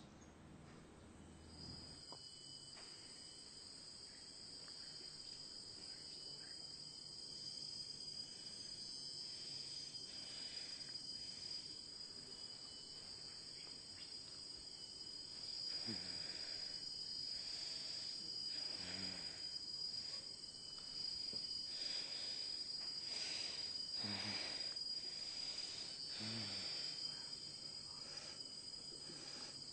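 Steady, shrill, high-pitched chirring like crickets, slowly growing louder, with a few brief low sounds in the second half.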